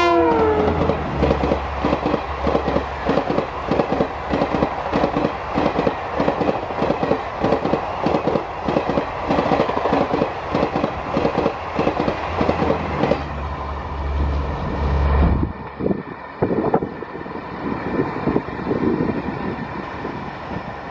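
An Indian Railways Garib Rath express of ICF coaches behind a WAP-5 electric locomotive passing at speed. A tone falls in pitch at the very start as the locomotive goes by, then the coach wheels clatter over the rail joints in a fast, steady rhythm. After about fifteen seconds the sound turns quieter and less regular as a receding train is heard.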